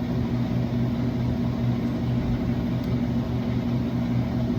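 Steady low electrical hum from an open Dixie Narco vending machine, running without a break.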